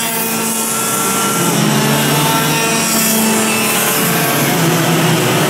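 Several two-stroke racing kart engines buzzing together, their pitches rising and falling as the karts brake and accelerate through the corners, over a steady hiss.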